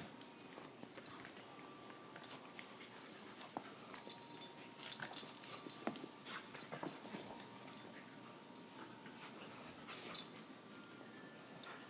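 Two young dogs play-fighting: scuffling and rustling against each other and the carpet, with brief thin whimpers now and then. A couple of louder sudden scuffles about five and ten seconds in.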